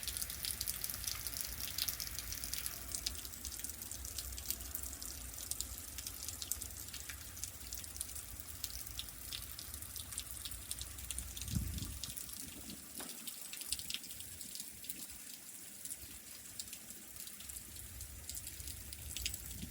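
Many small drops pattering and ticking on ice-coated surfaces during an ice storm, dense and continuous, over a low rumble that fades out about twelve seconds in. A single duller knock comes just before the rumble fades.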